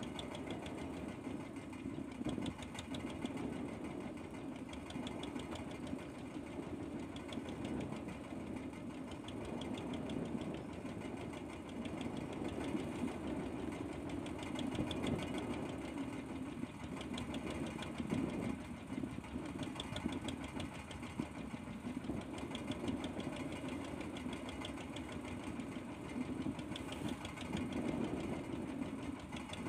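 Small fishing boat's engine running steadily at idle, a constant low drone with a faint fast ticking over it.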